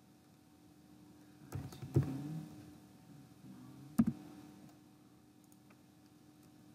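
A few sharp clicks of a computer keyboard and mouse: two close together between one and a half and two seconds in, and a single louder click about four seconds in.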